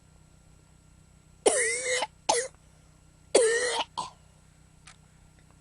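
A person sneezing twice, about two seconds apart. Each sneeze is a loud, sudden, voiced blast followed quickly by a shorter second burst.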